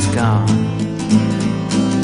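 Background music: a country-style song with strummed acoustic guitar and a singing voice.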